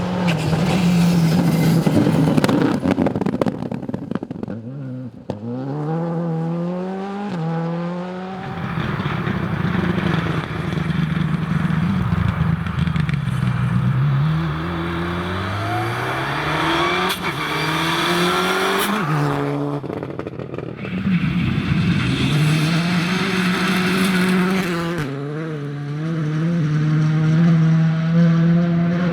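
Rally cars at full attack on a gravel stage, engines revving hard: the pitch climbs repeatedly as they accelerate through the gears and drops back at each shift, swelling as they pass.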